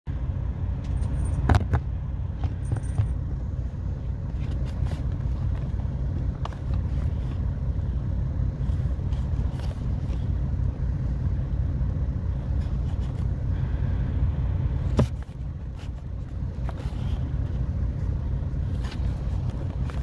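Truck engine idling with a steady low rumble, left running to recharge the batteries because the inverter is low. A few sharp clicks and knocks from the phone being handled sit on top of it, one about a second and a half in and one near 15 seconds.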